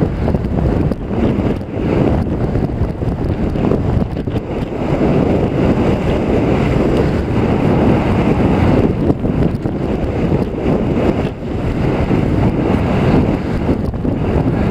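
Wind buffeting the microphone of a helmet camera on a moving mountain bike: a loud, steady rush of noise, heaviest in the low end, swelling and easing as the rider moves.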